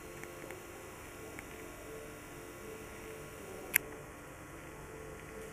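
Quiet room tone with a faint steady hum, broken by a single sharp click a little under four seconds in.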